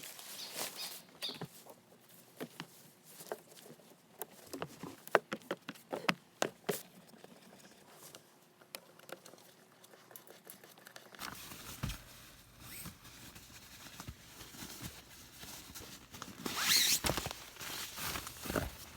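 Footsteps on a trail: irregular taps and scuffs, busiest a few seconds in, with a louder rustle near the end.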